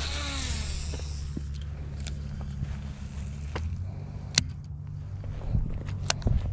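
A cast with a spinning or baitcasting rod and reel: the reel whirs with a falling whine for about a second as line pays out, then a few sharp clicks from the reel as the lure is worked back. A steady low hum runs underneath.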